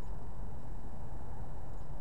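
Steady low rumble of a stationary car heard from inside the cabin through a dashcam microphone, the engine idling, with a faint steady high-pitched whine.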